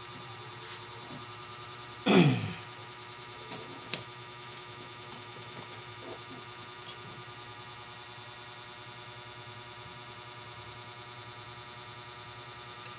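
A few light clicks and taps from small laptop parts being handled while the CMOS battery is disconnected for a reset, over a steady background hum. A single loud swish falling in pitch comes about two seconds in.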